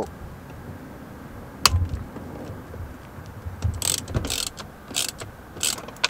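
Hand ratchet with a T30 security bit loosening a steering-wheel airbag security bolt. A single sharp click comes about a second and a half in, then several short bursts of ratchet clicking follow in the second half.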